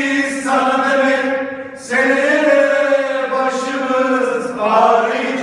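A group of men singing a football supporters' chant together in unison, holding long drawn-out notes, with a short breath break about two seconds in before the next line starts.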